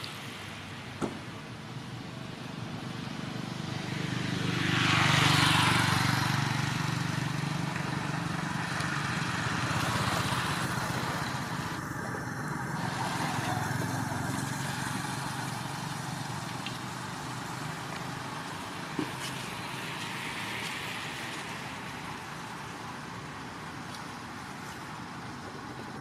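Outdoor background with a motor vehicle passing, swelling to its loudest about five seconds in and then fading, with smaller swells later. Two brief sharp clicks, one near the start and one about two-thirds of the way through.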